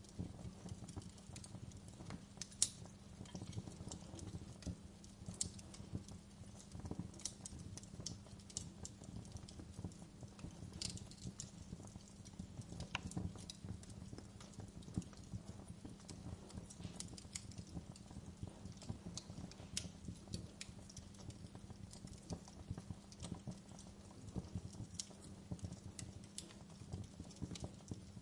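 Fire crackling in a fireplace: irregular sharp pops and snaps over a low steady rumble.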